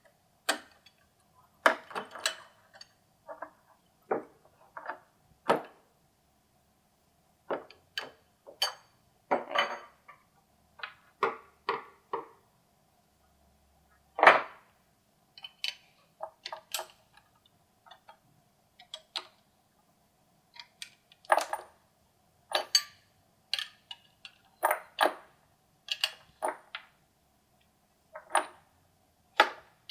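Metal clinks and clicks of a 19 mm wrench working the nuts of SO-239 coax connectors on a metal panel, in irregular bursts with short pauses between, over a faint steady hum.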